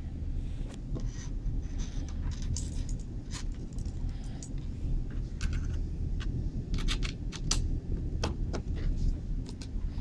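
A Lightning cable being handled on a desk: scattered small clicks and rattles from the plastic connectors and cord, thickest about seven to eight seconds in, over a steady low rumble.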